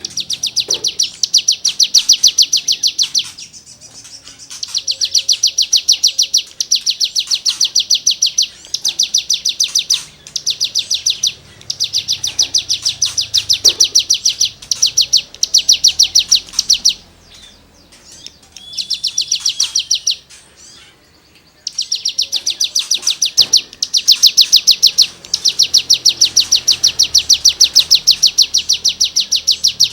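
Cigun songbird singing in full voice: runs of rapid, rasping high notes ('gesekan' material), each lasting one to three seconds with short breaks between them, about eight runs in all.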